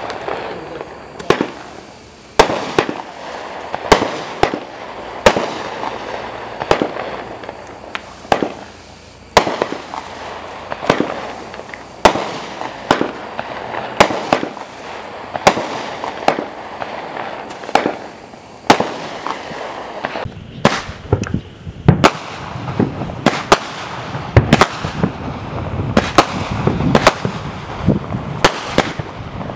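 Consumer multi-shot fireworks cakes firing shot after shot: sharp bangs roughly one or two a second over a steady noisy background.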